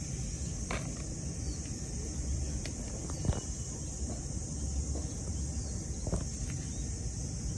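Outdoor garden ambience: a steady high-pitched insect drone over low wind rumble, with a few faint short clicks.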